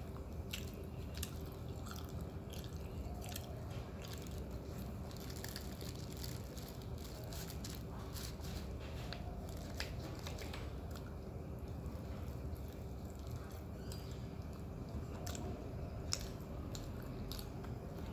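Close-up eating sounds: roti prata torn by hand and chewed, with scattered small clicks and mouth smacks, over a faint steady hum.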